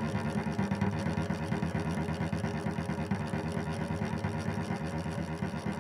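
Cello played with fast, even repeated bow strokes on low notes, making a steady pulsing drone.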